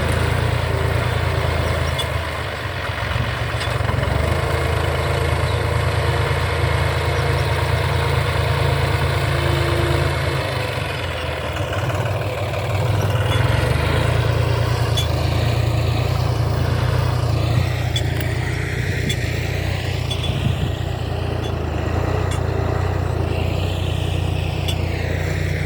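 Tractor engine running steadily as it ploughs a field.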